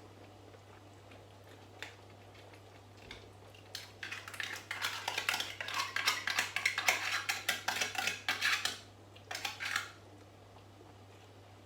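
Spoon clinking and scraping against a cooking pot while food is stirred, a quick run of strokes for about five seconds from about four seconds in, then a few more strokes a second later.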